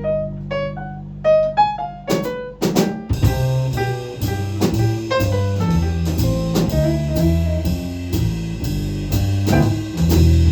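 Jazz ballad played by a small band: piano alone over low held notes at first, then about three seconds in the drum kit comes in with steady cymbal strokes under the piano and bass line.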